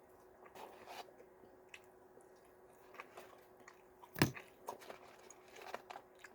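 A person chewing McDonald's french fries, which he finds soggy: faint, scattered mouth and chewing sounds with small clicks, and one sharper sound about four seconds in.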